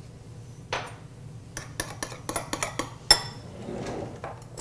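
Kitchen utensils clattering: a run of short clicks and clinks as a hand mixer's beaters and a spatula are handled around a glass mixing bowl, the loudest a single ringing clink about three seconds in.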